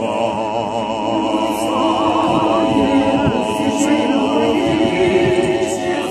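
Small Orthodox church choir singing a hymn a cappella, several voices holding long notes together with vibrato.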